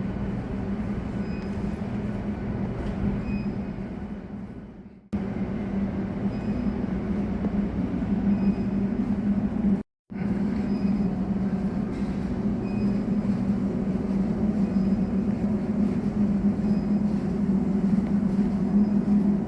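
Steady low drone of a moving vehicle, broken by a fade and a sudden cut about five seconds in and a brief dropout about halfway through.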